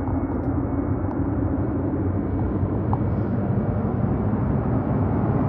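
Boeing 737-800's CFM56 turbofan engines at takeoff power for the start of the takeoff roll, heard from a distance as a steady low rumble that slowly grows louder.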